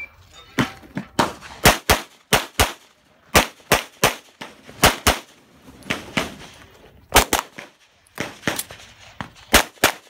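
Glock 34 9mm pistol fired rapidly through a competition stage. The shots come mostly as quick double taps about a quarter second apart, with pauses of about half a second to two seconds between pairs.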